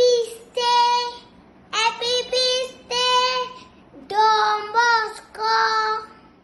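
A young boy singing alone without accompaniment, in several short phrases with brief pauses between them, each ending on a held note.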